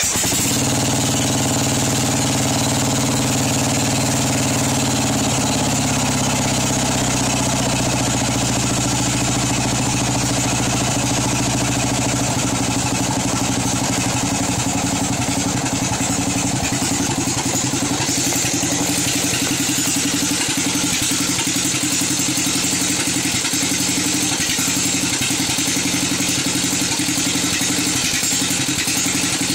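Craftsman riding mower's 13.5 horsepower engine running steadily just after starting, its note shifting about five seconds in. The engine has gas in its oil, which the owner puts down to worn oil rings.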